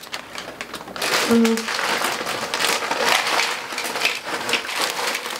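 Crisp chips pouring out of a crinkly plastic snack bag into a glass bowl: dense crackling and rustling of the bag with the chips rattling in. A short low hum sounds about a second and a half in.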